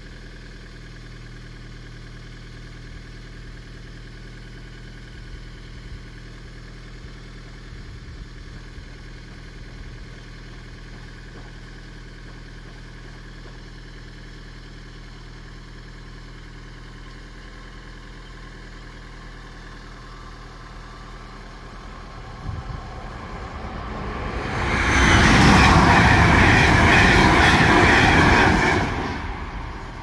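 An SJ X2 electric high-speed train passing the level crossing at speed: a loud rush that builds for about two seconds, holds for about four seconds and dies away quickly near the end. Before it, only a low steady hum.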